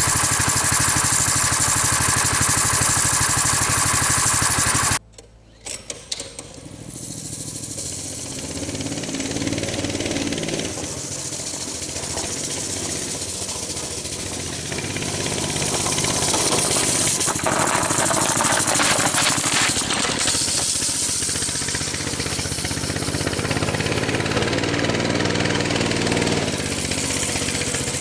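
Mini bike's small engine running loud and steady, cut off suddenly about five seconds in, then running again with its pitch rising and falling as it revs up and down.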